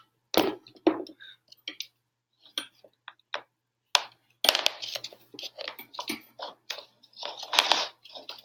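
Irregular clicks, taps and rustles of objects being handled close to the microphone, with two longer stretches of rustling about halfway through and near the end.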